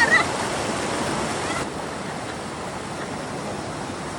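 River water rushing steadily, a continuous even hiss of flowing current.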